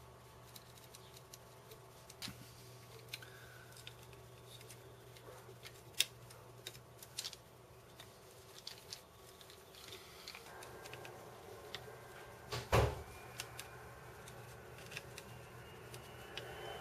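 Scattered small clicks and taps of a hand tool and small metal parts being handled while wire connectors are fitted to a record changer's tone arm cartridge, with one louder knock near the end, over a faint steady hum.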